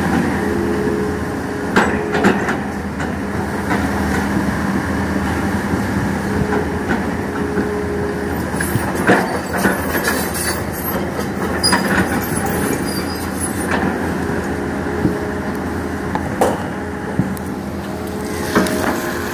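Hitachi Zaxis hydraulic excavator at work digging soil: a steady engine hum with a higher hydraulic tone that comes and goes as the boom and bucket move, and several sharp clanks from the bucket and its linkage.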